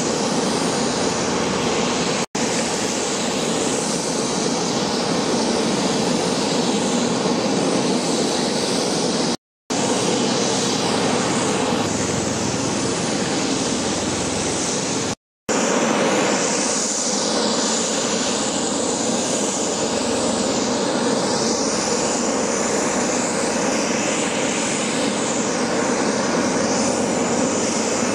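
Bell Boeing V-22 Osprey tiltrotor's rotors and turboshaft engines running, a steady loud hum with hiss, broken by three brief dead-silent gaps.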